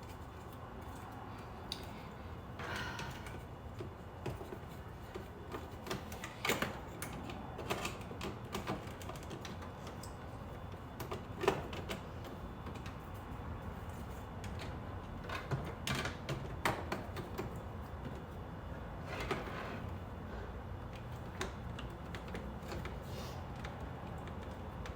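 Scattered small clicks and knocks of door-handle parts being handled and fitted together by hand, irregular and a few seconds apart, over a steady low hum.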